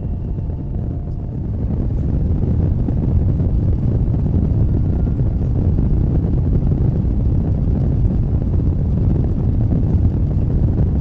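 Steady low roar of jet engines heard inside an airliner cabin, growing a little louder about two seconds in.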